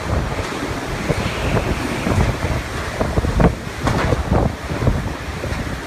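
Hurricane-force wind blowing hard and buffeting the microphone in gusts, with several sharper gusts a little past the middle.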